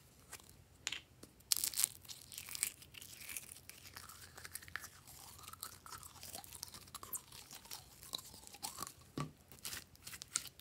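Plastic lid of a slime container clicking open, with a few sharp clicks early on. Then pink glitter slime is pulled out of the tub and handled, with a long run of small sticky crackles and faint squeaks.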